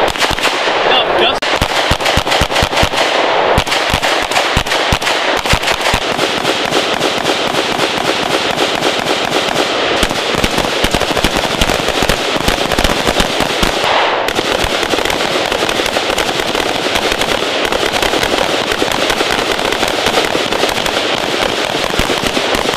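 Rapid gunfire from pistols and rifles on a firing range, several shooters firing at once. The shots come many a second and overlap, with no real break.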